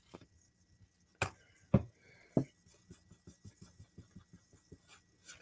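Brush applying a thin layer of Mod Podge to a painted wooden cutting board, knocking and tapping on the wood. There are three sharp knocks, the loudest about a second and three quarters in, then a run of light quick taps, about five a second.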